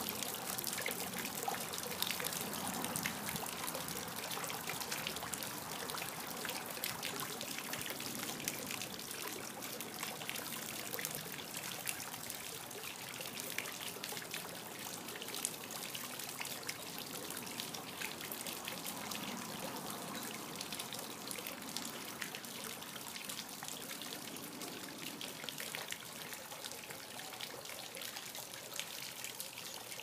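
Garden fountain splashing steadily: water spills from the Bird Girl statue's two bowls and spouts from two fish-shaped spitters into a shallow stone pool, with a constant patter of falling drops. It grows slightly fainter toward the end.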